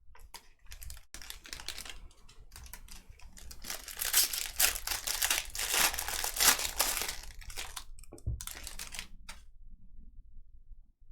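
Plastic wrapping crinkling and tearing as a sealed trading-card pack is opened, loudest in the middle and dying away about a second and a half before the end.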